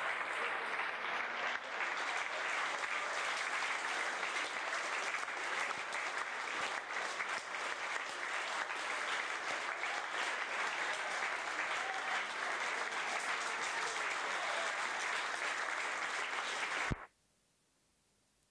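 Audience applauding steadily, a dense clatter of many hands clapping, which cuts off suddenly near the end.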